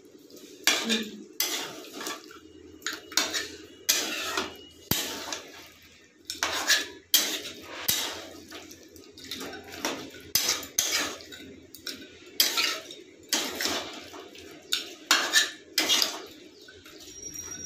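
Flat metal spatula scraping and clanking against a metal kadai as a thick mutton and potato curry is stirred, in repeated strokes roughly one or two a second. The spatula is scraping the bottom where the curry has caught and burnt.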